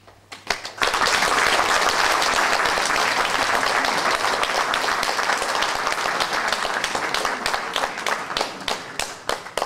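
Audience applauding. A few scattered claps lead into dense clapping from about a second in, which thins out into separate claps near the end.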